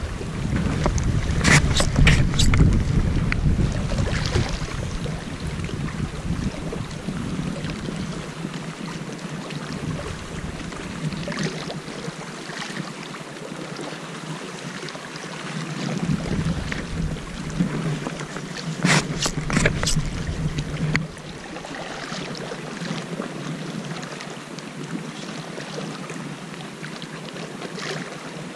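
Wind rumbling on the microphone and water lapping at a rocky shore, rising and falling in gusts and easing off about two-thirds of the way through. Two short clusters of sharp clicks, about two seconds in and again near the middle.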